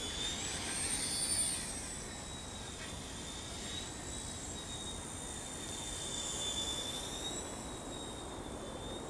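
WLtoys V911S micro RC helicopter in flight: a thin, high-pitched whine from its small electric motors and rotor, wavering in pitch as the throttle changes. It is loudest for the first second or so.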